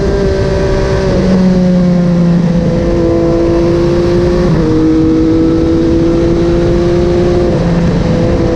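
MV Agusta Dragster 800's three-cylinder engine with a QD Power Gun exhaust, running under way at fairly steady revs. Its pitch steps down slightly about a second in, around the middle and near the end, over rushing wind.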